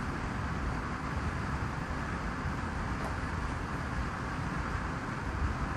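Steady background noise, an even low hum and hiss with no distinct cracks, knocks or voices.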